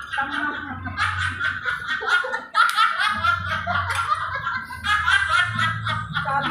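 Several women laughing together at a dining table, in repeated bouts of giggling and chuckling.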